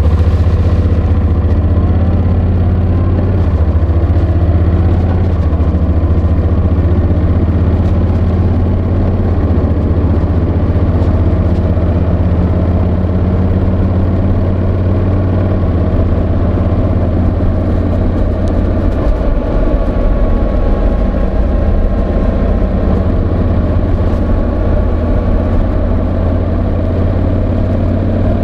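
Honda NC750X's parallel-twin engine running steadily, with a heavy low rumble, and the microphone scraping against the slippery fabric of a jacket pocket.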